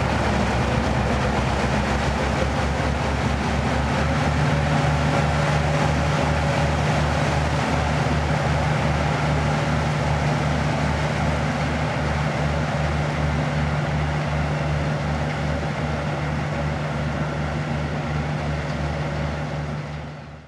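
Harbour tug's diesel engine running steadily under load as it drags a mud harrow through the riverbed silt, with an even low throb and a steady hum. It fades out at the very end.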